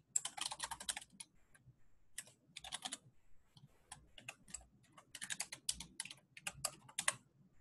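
Typing on a computer keyboard: quick bursts of keystrokes with short pauses between, the longest run from about five to seven seconds in.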